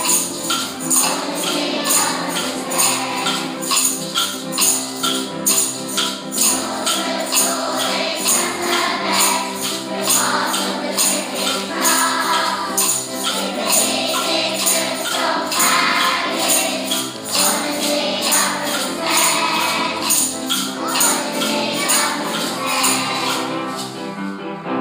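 Upbeat background music with a steady tambourine or shaker beat, about two strokes a second, and singing voices in places; it stops abruptly just after the end.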